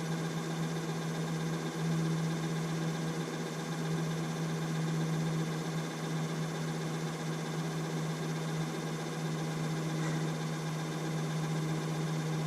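A steady machine hum at one low pitch with fainter higher overtones, unchanging throughout.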